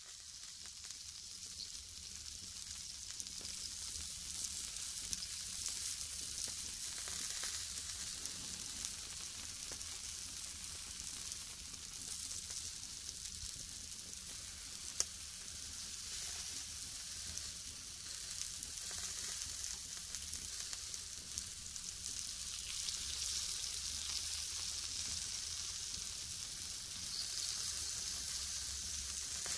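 Meat sizzling on a grill: a steady high hiss of fat frying, with scattered small pops and crackles and one sharper pop about halfway through. It fades in over the first second or two.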